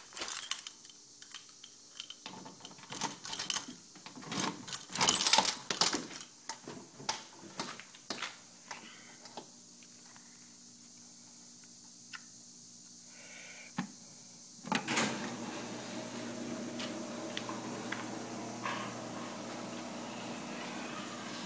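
Clattering and knocking for the first several seconds over a steady low electrical buzz from a Simplex TrueAlert fire alarm speaker. The buzz gets louder, with a hiss, about two-thirds of the way through. The owner suspects a loose or miswired connection in the speaker's wiring.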